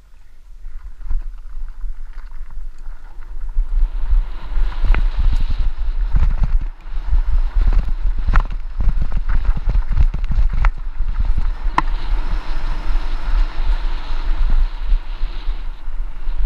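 Wind buffeting a helmet-mounted camera's microphone while riding a mountain bike down a dirt trail, growing louder over the first few seconds, with the tyres hissing over dirt and gravel and sharp clicks and knocks from the bike rattling over bumps.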